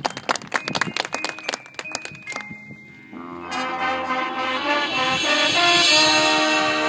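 High school marching band: quick struck percussion notes from drums and mallet keyboards, then about three seconds in the brass section comes in on a held chord that swells louder.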